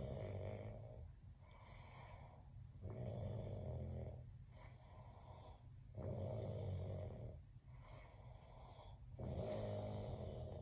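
A man snoring: four loud snores about three seconds apart, with quieter breathing between them.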